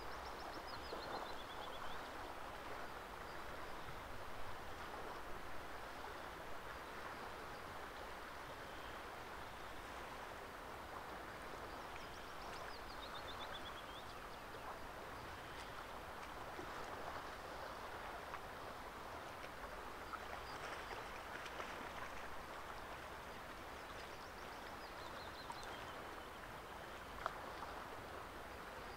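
Steady rush of running water, with a small songbird singing a short descending run of notes three times, about twelve seconds apart. A single sharp click sounds near the end.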